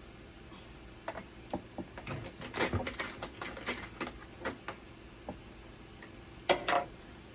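Irregular clicks and light taps of hand tools and small parts against a dialysis machine's casing during repair work, with two sharper knocks near the end. A faint steady hum runs underneath.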